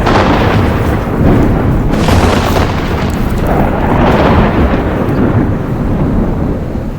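Thunder rumbling and cracking in several loud surges, dying away near the end.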